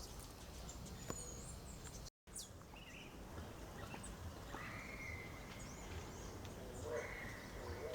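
Wild birds calling over a steady outdoor background hiss: scattered short high chirps in the first half, then two long, steady whistled notes, the first about two seconds long from about halfway in, the second near the end. The sound drops out completely for a moment about two seconds in.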